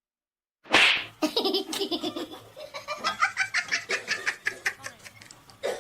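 A loud sudden burst about a second in, then a long run of rapid, pulsing laughter.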